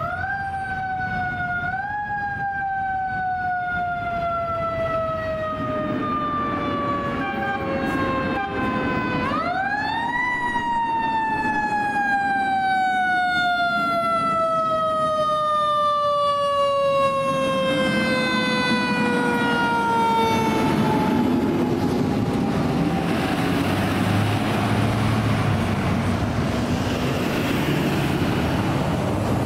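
Fire engine siren, a mechanical wail that winds up quickly and then coasts down in a long, slow falling tone. There is a short rise at the start, a sharp wind-up about nine seconds in, and a slow fall that fades out after about twenty seconds. The engine and road noise of the passing fire apparatus grow louder through the second half.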